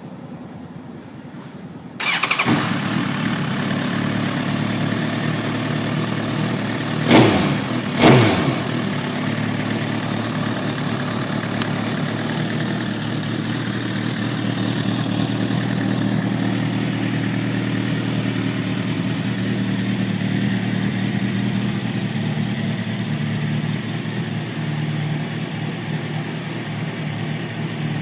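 Suzuki GSX-R1000 inline-four with a Kentz aftermarket muffler starting up about two seconds in and settling into a steady idle. It is blipped twice in quick succession about seven seconds in, the pitch rising and falling each time, then idles on.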